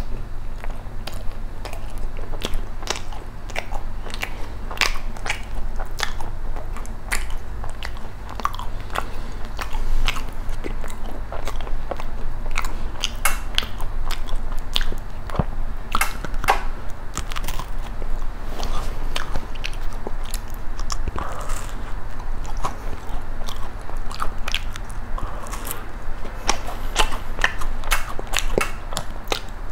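Close-miked eating of a thick-filled macaron (ttungkaron): bites into the macaron and steady chewing, with many small, irregular crisp crunches and clicks throughout.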